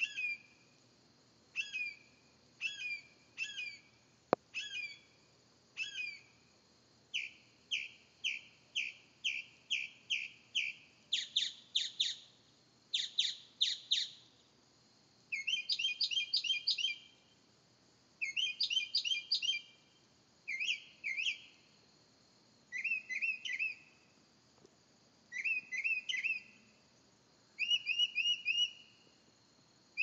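Northern mockingbird singing at night: a string of different phrases (chirps, quick whistled trills and harsh buzzy notes), each repeated several times before switching to a new one. A single sharp click about four seconds in.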